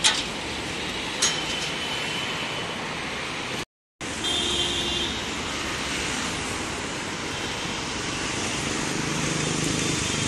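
Steady hum of road traffic. There is a sharp click right at the start and another about a second later, and the sound cuts out briefly a little under four seconds in.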